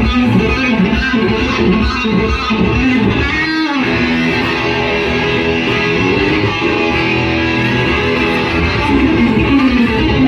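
Electric guitar played live through an amplifier in a continuous jam, with a quick downward slide about three and a half seconds in.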